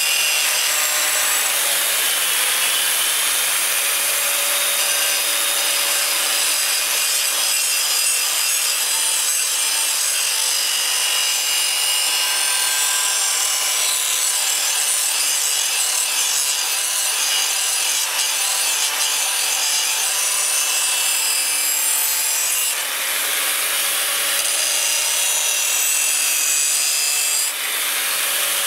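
Handheld electric angle grinder with an abrasive disc grinding a steel knife blade: a steady grinding hiss over the motor's whine, easing briefly twice near the end.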